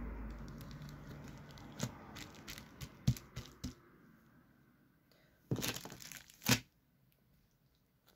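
Plastic zip-lock freezer bag crinkling and crackling as hands press it flat and handle it, a run of small crackles followed by a louder burst of crinkling a little past the middle.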